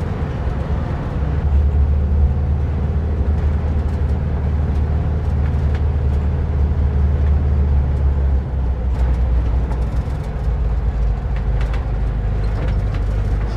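VW split-window bus's air-cooled flat-four engine running at low speed as the bus drives slowly, its deep hum dropping lower about eight seconds in as it slows.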